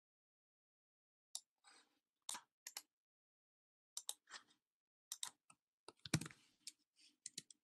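Scattered computer mouse clicks and keyboard key presses, a few at a time with short gaps between, the loudest cluster about six seconds in.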